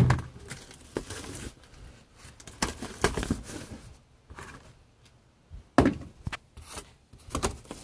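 Cardboard shipping box being handled and opened: scattered sharp knocks and thumps with rustling of the cardboard, the loudest knock at the very start and others about three and six seconds in.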